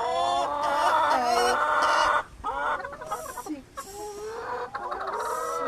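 Several domestic hens clucking at once, their calls overlapping. The calls are loudest for the first two seconds, then thin out to scattered single clucks after a brief lull.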